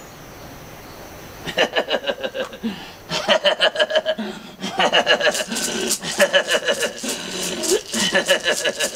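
A man's rapid, staccato vocal chant in choppy bursts, like clipped laughter, starting about a second and a half in: a traditional healer calling on the ancestors.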